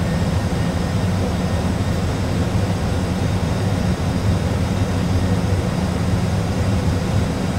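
Steady low rumble and hiss of an Airbus A320 cockpit in flight, reproduced by a full flight simulator's sound system: simulated engine and airflow noise during an approach.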